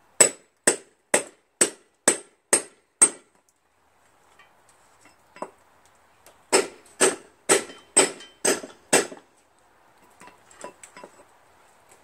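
A small sledgehammer striking a steel chisel held against the hub of a lawn tractor rear wheel that is rusted and seized on the transaxle shaft, driving the wheel off the axle. There are seven ringing metal blows at about two a second, a pause, then six more, and a few light taps near the end.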